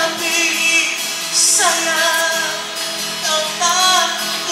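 Background music: a song with a woman singing a bending melody over a steady accompaniment.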